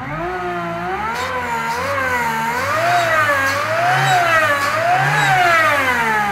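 Volkswagen Golf Rallye engine fitted with an Eaton supercharger, revved up and down from idle about once a second. The revs climb a little higher with each blip, then drop back toward idle near the end.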